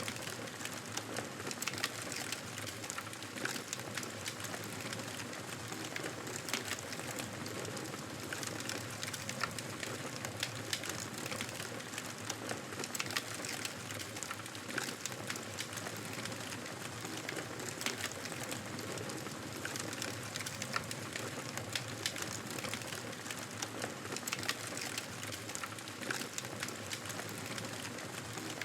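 Wood fire crackling in a fireplace: a steady hiss with frequent irregular small pops and snaps.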